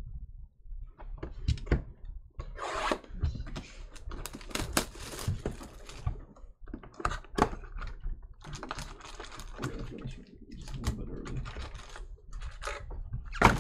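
A cardboard trading-card box, 2019-20 Chronicles basketball, being handled and opened by hand: an irregular run of crinkles, taps and clicks, with one sharp tap near the end.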